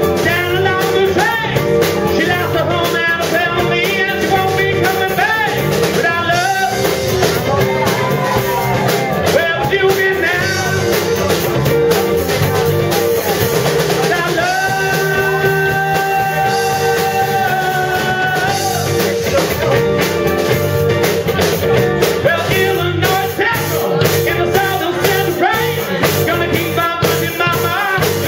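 Live rock band playing: a male singer over electric guitars, bass and drum kit, with one long held note about halfway through.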